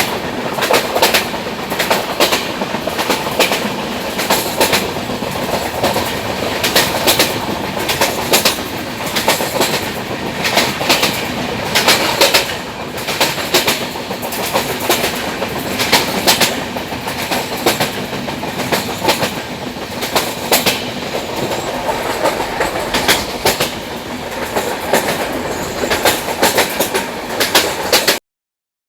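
Train wheels running over the rails with a steady clickety-clack of wheels striking rail joints over a continuous rolling rumble. The sound cuts off suddenly near the end.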